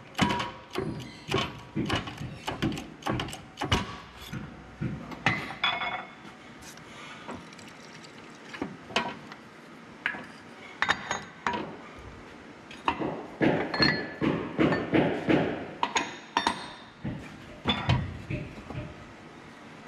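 Irregular metallic clanks and clinks of steel press tooling and hub parts as the gearing is pressed out of a John Deere final drive torque hub in a shop press and the tooling is lifted away. The knocks come quickly for the first few seconds, then more sparsely, with another quick run later on.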